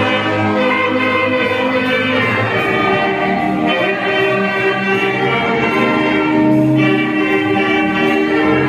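A filarmônica wind band playing, with held chords that change every few seconds.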